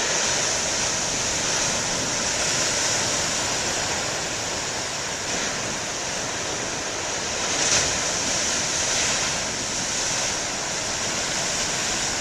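Ocean surf: waves breaking on a beach in a steady rush, with one louder crash about eight seconds in.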